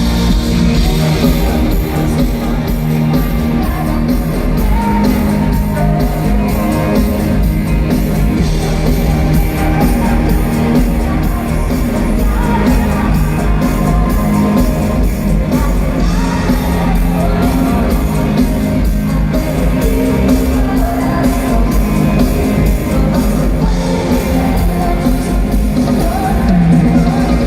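Live pop concert music heard loud in a large hall, with a steady beat, singing, and the crowd shouting and yelling along.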